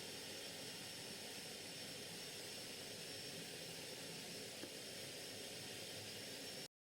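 Faint, steady background hiss with no distinct events, which cuts off suddenly near the end.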